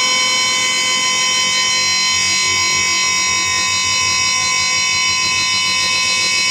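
GE U20 diesel locomotive's multi-tone air horn sounded in one long, unbroken blast as the train approaches, over a low rumble.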